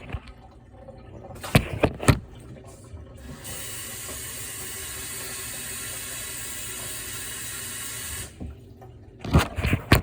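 Water tap running steadily for about five seconds, then shut off, filling water for a thirsty kitten. A couple of sharp knocks come about a second and a half in, and more near the end.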